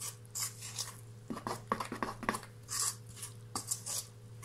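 A spoon stirring and scraping through flour and a wet yogurt mixture in a stainless steel bowl as the dough is first worked together, in irregular strokes with a few light knocks against the bowl. A steady low hum sits underneath.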